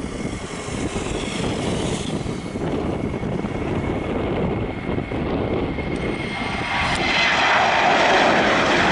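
Boeing 737-700's CFM56-7B turbofan engines at takeoff thrust through the takeoff roll, rotation and lift-off: a low rumble that grows louder and brighter from about seven seconds in, with a thin steady whine running through it.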